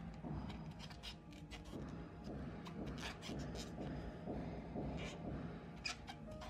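Crochet hook and yarn being worked by hand during single crochet: soft rubbing of yarn through the fingers with small irregular clicks, over a steady low room rumble.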